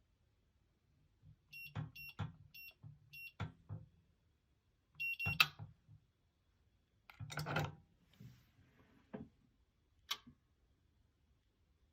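Amazon Basics steel safe's electronic keypad beeping: four short identical beeps as keys are pressed, then one longer beep. After that come mechanical clicks and clunks of the lock and handle being worked.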